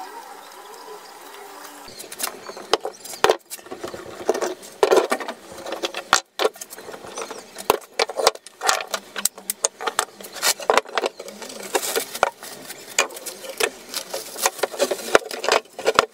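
A steady mechanical whir for the first two seconds, then a dense, irregular run of sharp knocks and clicks of hand and tool work on wood.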